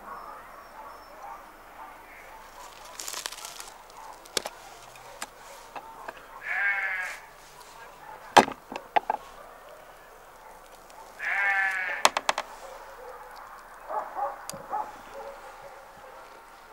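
Livestock bleating twice, two long wavering calls about five seconds apart, with a few sharp clicks in between.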